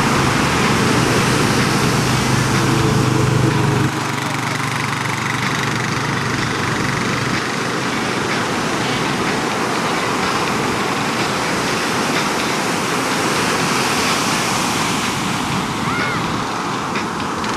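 Steady rushing noise of ocean surf, with a low hum that cuts off about four seconds in.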